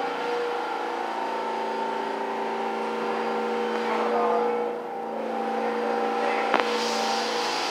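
R46 subway train slowing to a stop alongside the platform, with a steady mix of whining tones. A sharp click comes near the end, followed by a steady hiss.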